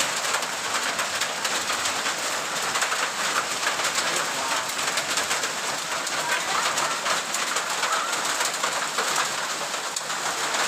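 Heavy rain mixed with hail pelting the ground: a dense, steady pattering of many small impacts.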